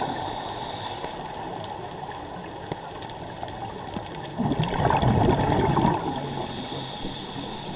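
Scuba regulator breathing underwater over a steady hiss. One loud burst of exhaled bubbles starts about four and a half seconds in and lasts about a second and a half.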